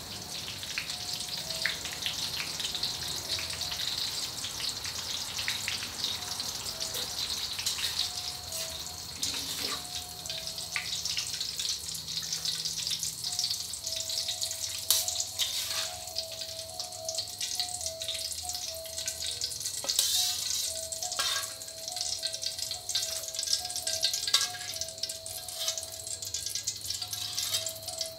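Holy basil leaves deep-frying in hot oil in a wok: a steady, crackling sizzle with many sharp pops.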